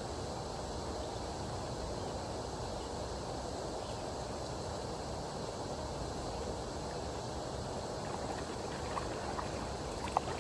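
Steady low rushing outdoor noise, with a few faint short clicks near the end.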